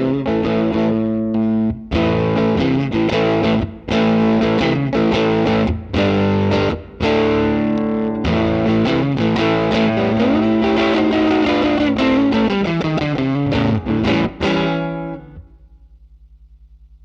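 Fender Stratocaster electric guitar played through a Line 6 Helix amp-and-cab model with distortion: short phrases and held chords with brief gaps between them and a string bend around the middle. The playing stops near the end, leaving a low steady hum.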